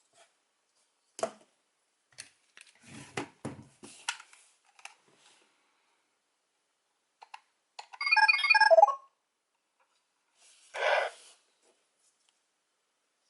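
Plastic clicking and rattling as a Morph-X Key is handled in a Power Rangers Beast Morphers electronic toy. Then a loud burst of electronic beeping tones comes from the toy's small speaker, followed shortly by a brief electronic sound effect.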